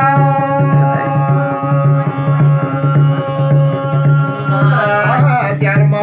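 Garhwali jagar music: a man sings one long held note for about five seconds, then moves on to new words, over a steady beat on a rope-laced hand drum, with a metal plate struck alongside.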